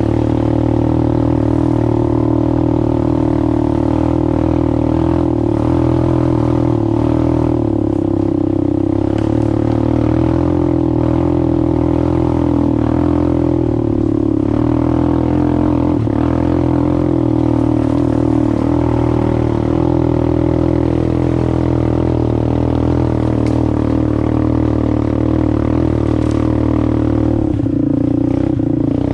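ATV engine running at a steady pitch under way, its revs barely changing.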